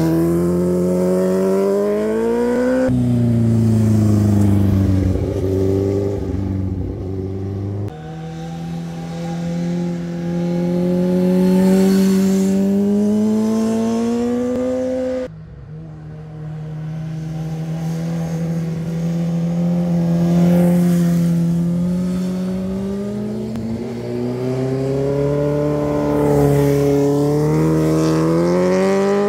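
Sport motorcycle engines accelerating through bends, one bike after another. The engine pitch climbs under throttle and steps down at each gear change, and it breaks off suddenly where one bike's pass gives way to the next.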